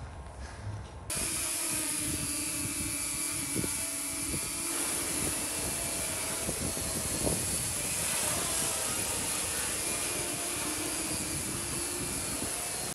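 Multirotor drone (the FireDrone prototype quadcopter) flying, its propellers giving a steady buzzing hum over the rushing and crackling of a large open fire; the sound steps up suddenly about a second in and then holds steady.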